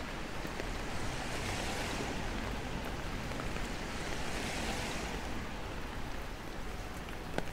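Cars passing on a rain-soaked street, their tyres hissing through the water on the road, in two swells that rise and fade about a second in and about four seconds in, over steady rain.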